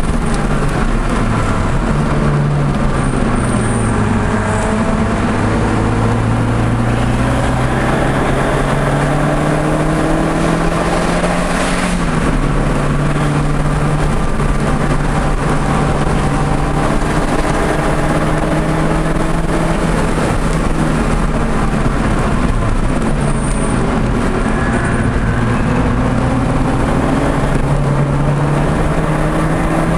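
Audi TT's engine pulling through a lap on a race track, its pitch rising and falling with speed and dropping suddenly at a gear change about twelve seconds in. Steady road and wind noise sits underneath.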